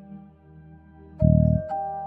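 Instrumental background music with held steady tones and a slow melody, and a deep low note coming in about a second in.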